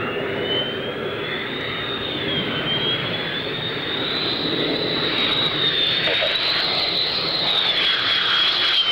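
General Dynamics F-111's twin Pratt & Whitney TF30 turbofans on final approach to land: a high whine that wavers slightly in pitch over a steady jet roar, growing a little louder as the jet comes closer.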